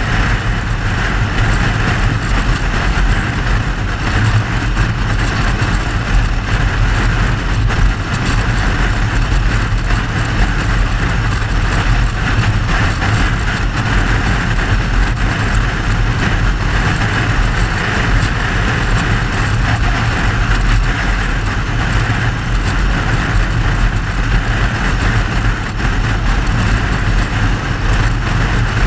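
Mercedes-Benz W126 car being driven at a steady pace: a constant low engine and road rumble with an even hiss over it and no revving.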